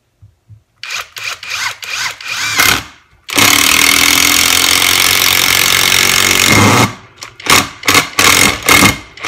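Greenworks 24V brushless impact driver driving a 3-inch screw into a 4x4 block with no pilot hole. It starts with a few short trigger bursts, then hammers continuously for about three and a half seconds. Near the end come short repeated bursts, about two a second, as the bit starts spinning on the screw head.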